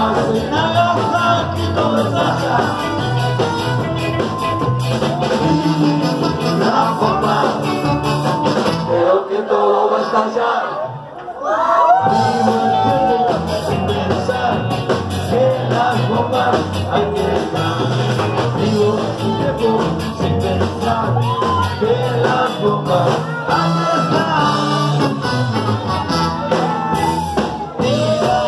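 Live punk band playing loud, with electric guitar, bass and drums, recorded from inside the crowd. About ten seconds in, the band drops to a brief quieter break, then comes back in at full volume.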